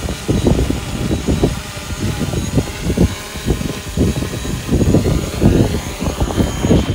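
Wind buffeting the microphone in irregular low gusts, with a faint steady high whine underneath.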